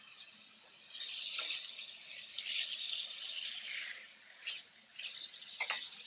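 Spinach and artichoke hearts sizzling in a sauté pan as they are stirred: a hiss that swells up about a second in and lasts about three seconds, then two short clinks of the utensil against the pan.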